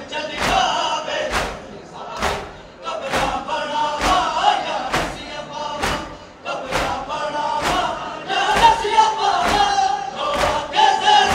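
Large crowd of male mourners chanting together, with a loud beat of chest-beating (matam) landing about once a second.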